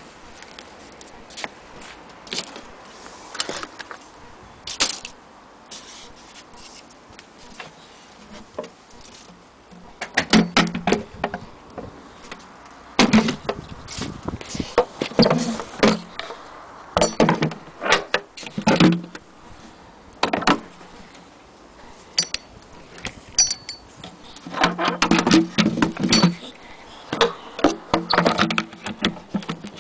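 Clicks, knocks and rattles from an antique Singer hand-crank sewing machine and its wooden base being handled, coming in irregular bursts of metal and wood clatter that grow louder and busier in the second half.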